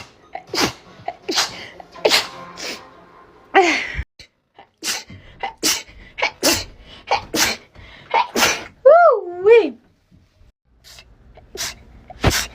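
A woman sneezing in rapid series: a dozen or more short, sharp sneezes close together, with a brief wavering vocal sound about nine seconds in.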